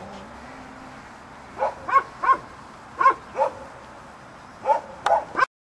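Belgian Malinois giving about eight short barks in quick groups of two or three. The sound cuts off suddenly near the end.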